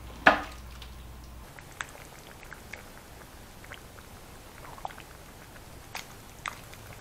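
A black plastic ladle scooping thick jambalaya in a ceramic slow-cooker crock: one sharp knock of the ladle against the crock about a quarter second in, then faint wet squelches and light taps as it stirs and lifts the stew.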